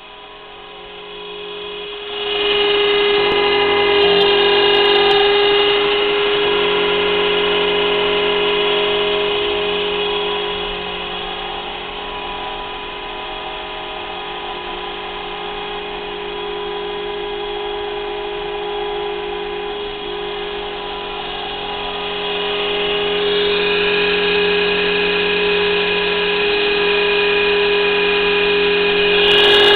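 CNC machine running, its spindle giving a steady high-pitched whine. It grows louder about two seconds in, eases off for a stretch in the middle, then rises again.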